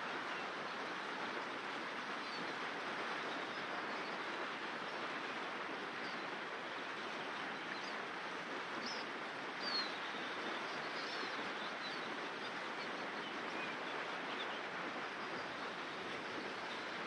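River water running over a shallow stony bed, a steady rushing, with a few short bird chirps scattered over it, the clearest one near the middle.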